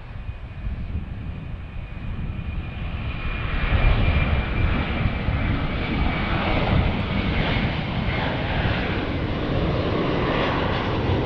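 Airbus A330 twin-jet airliner's engines at take-off power as it lifts off and climbs away: a steady jet roar that grows louder over the first few seconds and then holds. A thin high whine sits on top and fades out late on.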